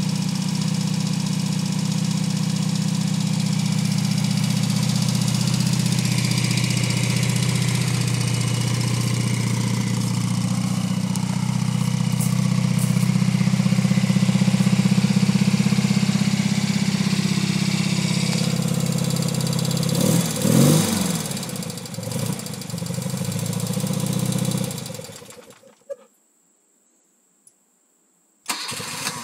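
1975 BMW R75/6's air-cooled flat-twin engine idling steadily, with one brief blip of the throttle about 20 seconds in. The sound then fades and drops to silence for about three seconds before coming back near the end.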